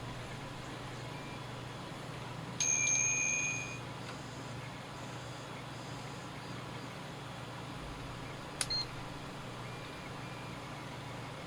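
BT-770S digital multimeter giving one high beep lasting about a second, a few seconds in, over a steady low hum. Near the end there is a short click with a brief high chirp.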